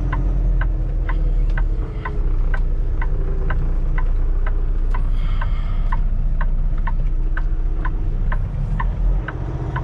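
Inside the cab of a 2023 Kenworth T680 semi: the diesel engine idling with a low, steady rumble, and a sharp ticking repeating evenly about three times a second over it.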